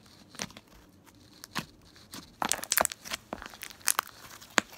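Thick mixed white-glue and clear-glue slime being squeezed and stretched by hand, giving irregular sticky pops and crackles that come thicker in the second half.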